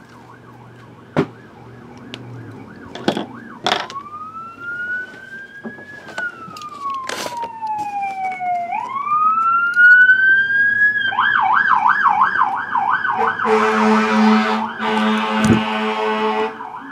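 Emergency vehicle siren: a slow wail rising and falling in pitch, switching about 11 seconds in to a fast warbling yelp, then a steady buzzy horn blast over the last few seconds. A few sharp knocks come in the first seconds.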